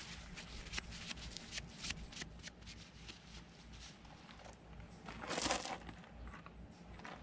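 Crinkling and rustling of disposable plastic gloves and a paper towel wiping old grease off a propeller's splined hub, in small faint crackles, with one louder scuffing rustle about five seconds in.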